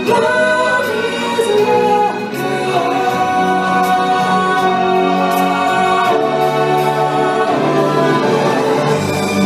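Stage-show music: a choir singing long held notes over orchestral accompaniment.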